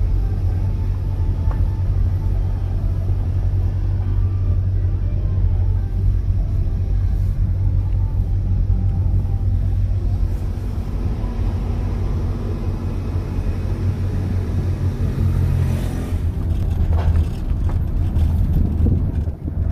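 Steady low rumble of a motor vehicle driving, engine and road noise.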